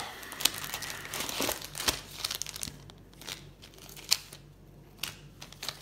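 Plastic rig packets and the wallet's clear plastic pockets crinkling as they are handled, busiest in the first three seconds, with a sharp click about four seconds in.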